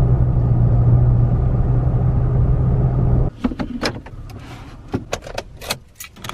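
Steady drone of a car driving, heard inside the cabin, with a strong low hum; it cuts off suddenly about three seconds in. Then a run of sharp clicks and knocks from a hand handling the gear shifter and center console.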